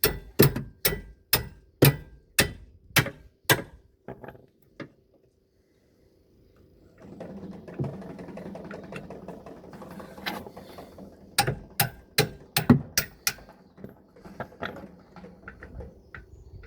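Hammer striking a breaker bar to break loose seized-tight rear brake bolts. There is a run of about eight sharp strikes, about two a second, then a pause, and a second quicker burst of blows about eleven seconds in.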